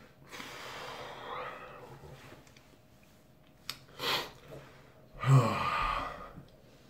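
A man breathing hard through the burn of chewed habanero peppers: a long heavy exhale, a quick sharp breath about four seconds in, then a loud sigh with a low voiced start just after five seconds.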